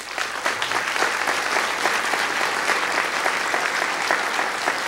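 Audience applauding: many people clapping, breaking out suddenly and holding at an even level.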